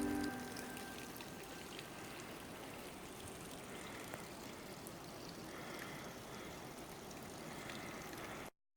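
Steady rushing of running water, like a small stream, with a few faint ticks; it cuts off suddenly near the end.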